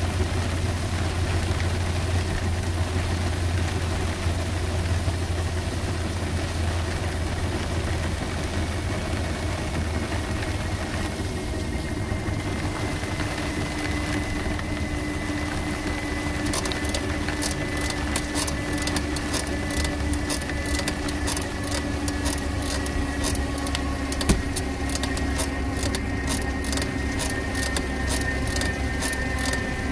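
Steady low rumble of road and wind noise inside the cabin of a Better.bike PEBL pedal-electric vehicle driving on a wet road, with a faint whine that slowly shifts in pitch. From about halfway through, a fast, regular ticking joins in.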